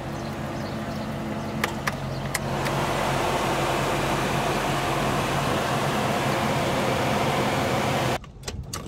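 A steady low hum with a few sharp clicks about two seconds in. Then a louder, even rush of air, like a car's air-conditioning blower running, cut off abruptly near the end.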